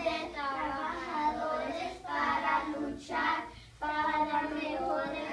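A small group of young children reading aloud together in unison in Spanish, in a drawn-out, sing-song chant with short pauses between phrases.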